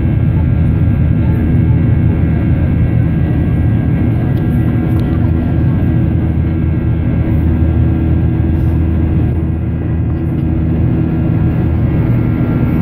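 Cabin noise of a Ryanair Boeing 737-800 climbing out after takeoff: its jet engines give a steady, loud low rumble, with several steady humming tones above it, heard from a window seat inside the cabin.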